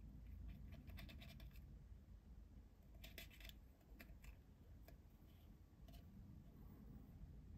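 Faint scratching and rustling of fingertips against a paper serving boat as small pieces of DIY takoyaki-shaped candy are pushed into place, in a few short bursts.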